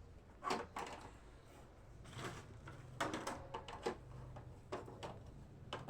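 Irregular light knocks and clatter of groceries and bottles being set into and shifted about in a fridge, a dozen or so short taps spread over a few seconds.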